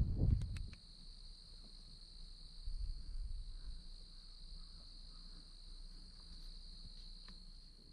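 Steady high-pitched insect trill, with a few faint clicks about half a second in.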